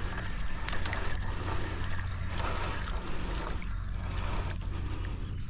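Steady low motor hum with an even hiss over it and a scattering of sharp light clicks.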